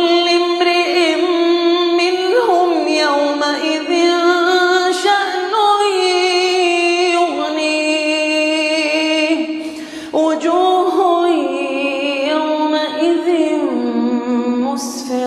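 A man's voice chanting the Quran in melodic murattal style, holding long drawn-out notes with ornamented turns. There is a brief breath break about ten seconds in, after which the chant resumes.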